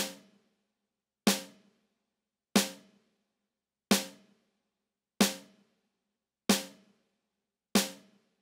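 A single drum struck seven times at an even pace, about one hit every 1.3 seconds, each hit ringing out briefly before the next: an isolated test signal on a car-audio judging disc.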